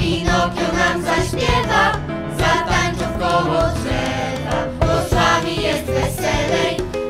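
Background music: a song with a group of voices singing over a steady accompaniment.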